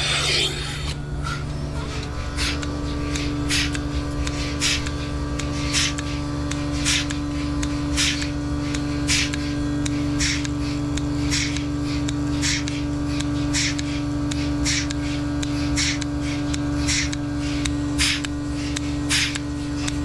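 Dairy milking machines running: a steady hum with the pulsators hissing in an even beat, a little under two strokes a second.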